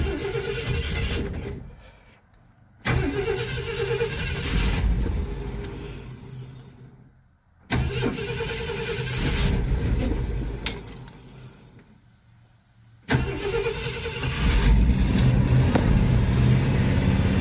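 1965 Ford Thunderbird's 390 V8 being cranked and started four times: three times it runs for a few seconds and then dies away, and the fourth time, about 13 seconds in, it keeps running and grows louder as throttle is given. The cold engine, long out of use, won't stay running on its own.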